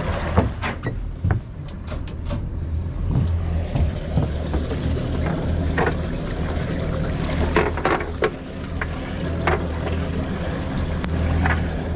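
A wet cast net is hauled aboard a boat, its lead weights and mesh making scattered sharp clicks and taps against the deck. A steady low hum from the idling outboard motors runs underneath.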